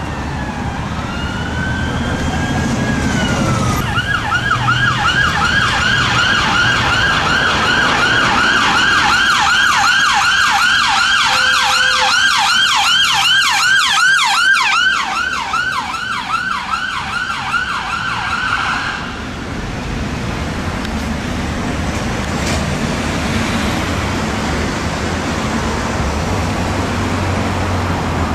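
NHS ambulance's electronic siren passing on an emergency response. It begins with a slow rising and falling wail, switches to a fast yelp of about three sweeps a second, then cuts off suddenly, leaving road traffic noise.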